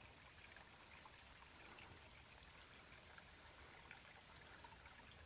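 Near silence: faint outdoor ambience, a soft even hiss with scattered faint ticks.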